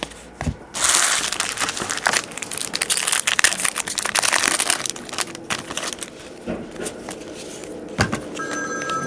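Foil wrapper of a 2007-08 SP Authentic basketball card pack being torn open and crinkled by hand. This is followed by a softer rustle as the cards are leafed through. Near the end a telephone starts ringing.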